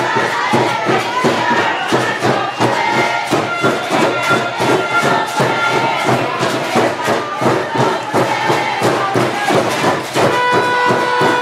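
Music with a fast, steady drum beat over crowd noise, with a held pitched note near the end.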